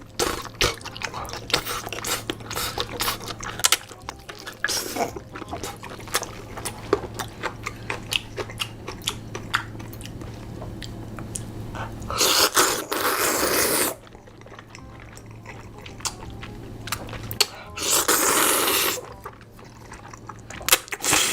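A person chewing and biting crunchy food, with many quick crisp crunches, then two longer, louder hissing bursts of noise about twelve and eighteen seconds in.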